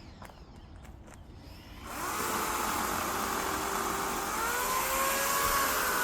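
A few faint clicks, then about two seconds in an electric chainsaw starts running loudly, its motor whine rising and falling in pitch.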